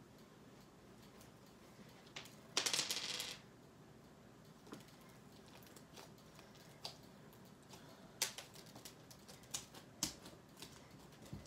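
Jelly cube slime being handled: scattered sharp clicks and pops, with one louder crackling burst of under a second about two and a half seconds in.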